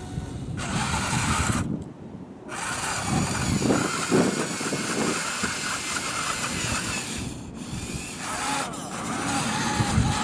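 Radio-controlled toy wheel loader running: its small electric drive and gear motors whine, pausing briefly about two seconds in. In the middle comes rough crunching and scraping of gravel as the bucket digs into the pile.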